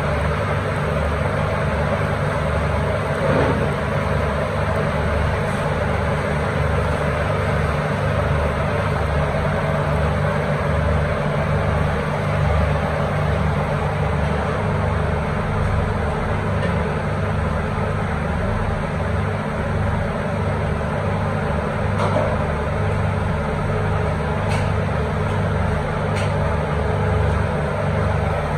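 Steady low roar of commercial kebab-grill equipment in a kitchen, with a few faint ticks.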